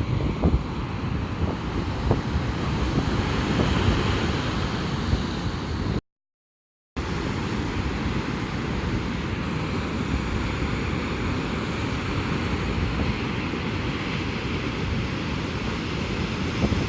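Strong typhoon wind buffeting the microphone over the steady rush of heavy surf. The sound cuts out completely for about a second around six seconds in, then resumes.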